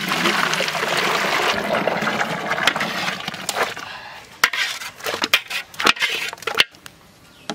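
Thick boiled mango pulp pouring in a heavy stream from a large kadai into an aluminium pot, splashing steadily for about four seconds. Then a run of sharp metallic clinks and knocks from the pans as the last of it trickles in.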